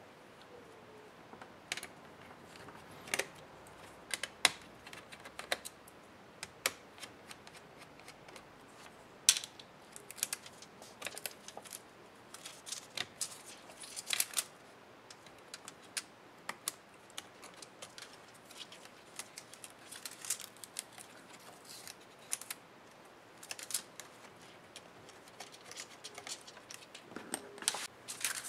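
Irregular light clicks and taps as the internal parts of an ASUS TUF FX505D laptop are pried and handled with a small hand tool, in loose clusters with short gaps.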